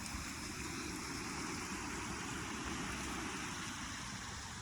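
A river rushing steadily over rocks, a constant even wash of water noise with a low rumble underneath.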